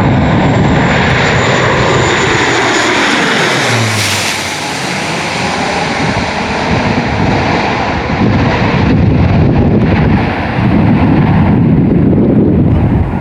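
Airliner passing low on landing, its engine sound sliding down in pitch as it goes by. From about two-thirds of the way through, gusty wind rumbles on the microphone.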